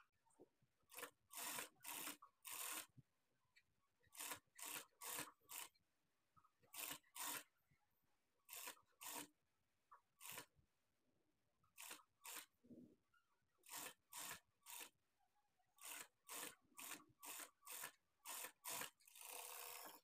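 Faint rustling of cloth as hands smooth and shift fabric pieces on the sewing table, in short strokes that come in quick clusters of three or four with quiet gaps between.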